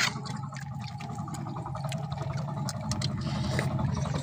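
Steady low hum of an engine running, with a faint steady tone above it and a few light clicks.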